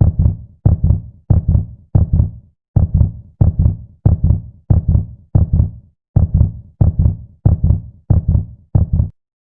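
Heartbeat sound effect: a steady run of deep double thumps, lub-dub, about one and a half beats a second. It stops near the end.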